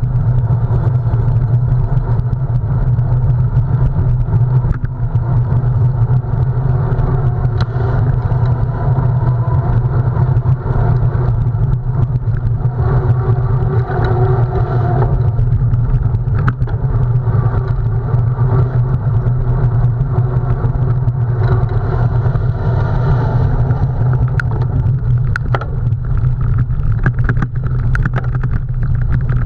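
Steady, loud low rumble of wind buffeting the microphone as a bicycle is ridden in a cyclocross race, with scattered sharp clicks and rattles.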